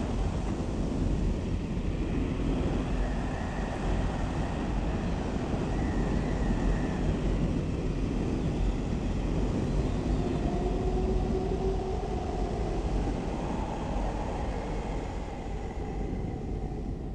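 Blizzard wind driving snow across an icefield: a steady rushing noise with faint, drawn-out whistling tones rising and fading within it.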